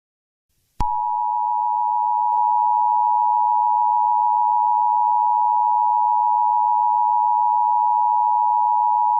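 Emergency alert attention tone: a steady electronic tone held for about eight seconds, starting suddenly about a second in and cutting off abruptly, as it does before an alert message is read.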